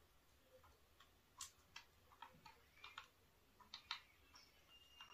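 Faint, uneven clicks of buttons being pressed on a handheld Nintendo Switch, about a dozen of them. Near the end a faint, steady high tone begins.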